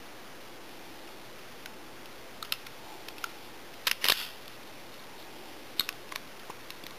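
Metallic clicks and clacks of a Kimber 1911 .45 ACP pistol being worked by hand during a safety check. There are several separate clicks, with the loudest pair about four seconds in.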